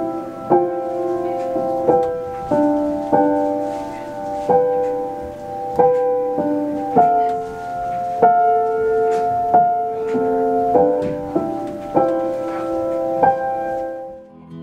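Grand piano played slowly: chords and single notes struck about once a second, each left to ring on.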